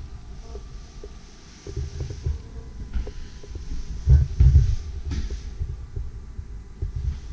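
Irregular low thumps of footsteps and handling noise from a handheld camera being carried through a room, with a few light clicks; the thumps are loudest a little after four seconds in.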